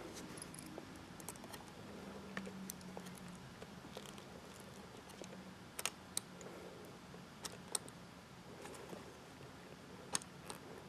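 Small metallic clicks and ticks of screws being turned by hand and a 3.5-inch hard drive shifting in a steel drive bracket, scattered and faint, with a few sharper clicks past the middle.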